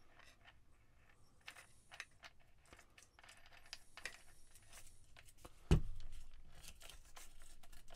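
Faint clicks and light metallic rattles of a cordless angle grinder and its parts being handled, with one louder knock about two-thirds of the way through; the grinder is not running.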